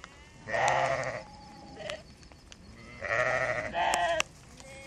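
Sheep bleating: two loud calls, about half a second in and about three seconds in, the second running straight into a shorter one.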